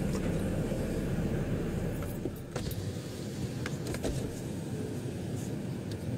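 Car in motion heard from inside the cabin: a steady low rumble of engine and road noise, its deepest part easing a few seconds in. A few light clicks and a jangle sound over it.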